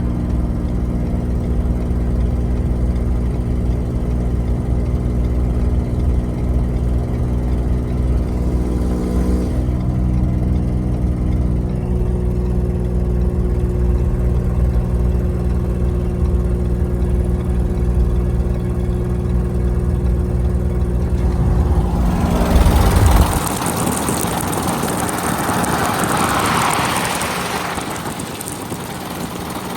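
Vehicle engine idling steadily with an exhaust leak; its note shifts once about ten seconds in. Near the end the low engine note drops away and a loud rushing hiss takes over.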